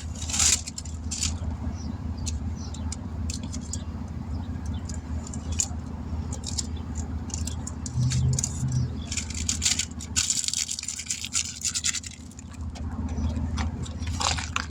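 Clicks and scrapes of a tyre and wheel being handled and set up for balancing, over a steady low hum, with a louder scraping hiss about ten seconds in.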